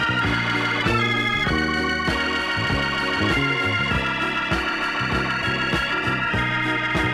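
Late-1960s funk soul-jazz instrumental: a Hammond organ plays held chords and melody over an electric bass line and drums, with drum hits keeping a steady beat.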